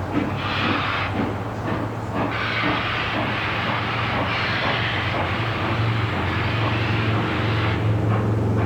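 Reading & Northern 2102, a 4-8-4 steam locomotive, moving slowly by with its steam hissing in long bursts a second or so apart, over a steady low drone that grows louder toward the end.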